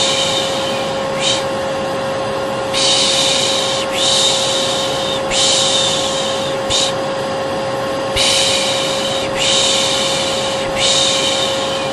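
Vacuum cleaner running with a steady motor whine, under a person's repeated shushing ('piş piş'). The shushes come in runs of long 'shh's about a second each, broken now and then by a short one: a baby-soothing sound.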